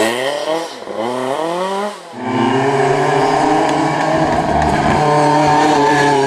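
Rally car engines at full race revs: in the first two seconds an engine's pitch climbs twice with a quick dip between, typical of an upshift. After a short drop, a Lancia 037's supercharged four-cylinder holds a steady high pitch as the car comes up close.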